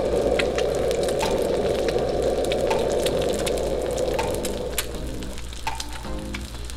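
Egg frying in hot oil in a wok: a steady sizzle with scattered crackling pops, easing off about four and a half seconds in. Faint background music comes in near the end.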